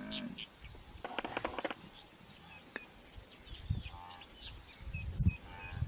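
Outdoor savanna ambience with birds chirping, and a short buzzy, pulsing animal call about a second in.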